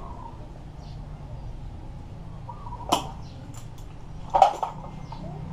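Knocks and clatter of metal motorcycle parts being handled while the fuel tank is fitted: one sharp knock about three seconds in, a few light clicks, then a louder clatter near the end, over a steady low hum.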